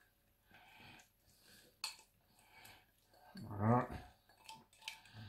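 Utensil scraping and clinking against the glass bowl of a mini chopper and a ceramic plate as chopped food is emptied out, with a few sharp clicks. About two-thirds through, a short hummed vocal sound rising in pitch is the loudest thing.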